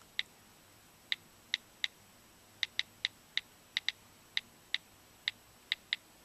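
On-screen keyboard key-press clicks from a jailbroken iPhone/iPod with the Droid sounds tweak active: about fifteen short, sharp ticks with a slight ring, coming at an uneven typing pace as a search is typed.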